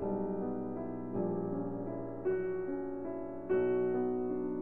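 Background music: slow piano playing sustained chords, a new chord struck about every second.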